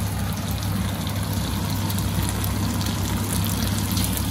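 Tofu deep-frying in hot oil, sizzling and crackling steadily, over a low hum.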